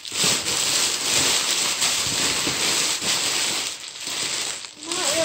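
Clear plastic bags crinkling and rustling as hands rummage through a cardboard box, dipping briefly a little before the end.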